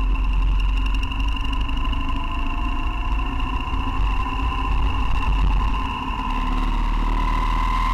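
BMW R1200GS boxer-twin motorcycle riding at road speed, heard from a front-mounted camera: a steady low engine and wind rumble with a constant high whine that rises slightly near the end.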